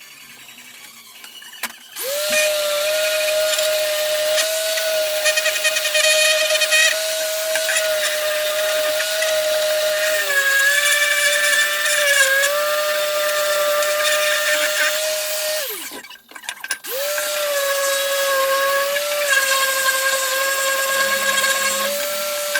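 A small high-speed electric power tool motor starts up and runs with a steady high whine, its pitch sagging slightly twice. It cuts off suddenly, then starts again about a second later and keeps running.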